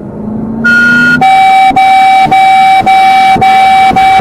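Vehicle horn sounding in a run of quick blasts: one higher note, then about six steady half-second blasts in a row. The engine note rises under it in the first second.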